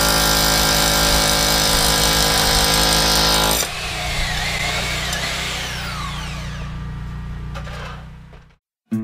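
Corded power tool running at full speed with a steady whine, then switched off a little over three seconds in and winding down, its pitch falling slowly as it fades out over about five seconds.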